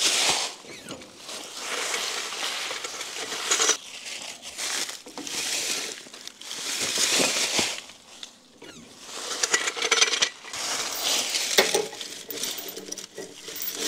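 Welding arc from a Vulcan OmniPro 220 welder crackling in a series of short runs of about one to two seconds each, with brief pauses between them, as the steel truck frame rails are stitch-welded together.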